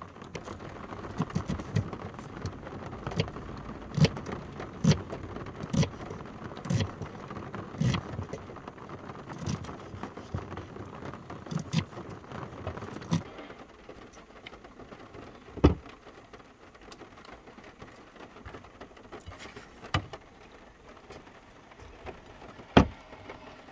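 Knife chopping onion on a wooden cutting board: irregular knocks, with rain pattering on the van's roof throughout. After about thirteen seconds the chopping thins out to a few single, louder knocks.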